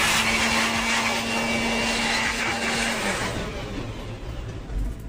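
Electric air blower blowing dust out of the router's motor housing: a steady rush of air over a low steady motor hum, switched off about three seconds in and winding down.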